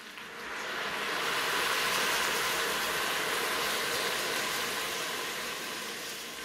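Seafood stock pouring from a carton into a stainless steel stockpot: a steady stream of liquid that swells during the first second and slowly tapers toward the end.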